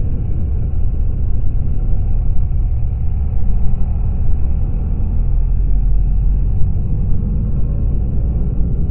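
BMW R1200GS boxer-twin motorcycle engine running steadily under way, a low, even drone.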